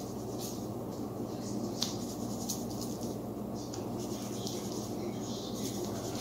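Faint, scattered scratchy ticks of salt and pepper being put on thin breakfast steaks, over a steady low kitchen hum.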